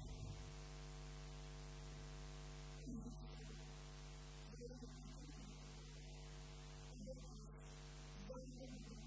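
Steady electrical mains hum with a buzzy stack of overtones, and a few faint, brief sounds over it.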